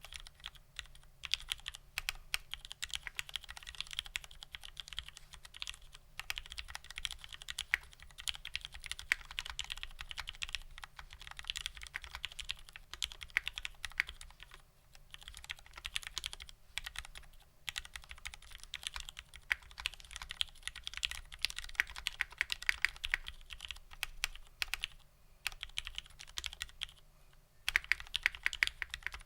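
Fast typing on a mechanical keyboard with lubed Cherry Vintage Black linear switches, on an aluminium plate with GMK keycaps. The keystrokes are continuous, broken by a few brief pauses.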